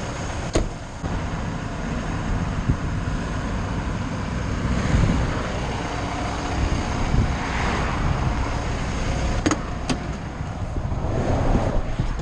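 Road traffic passing over a steady low engine rumble, with vehicles swelling past every few seconds. A sharp click comes about half a second in and two more close together near ten seconds.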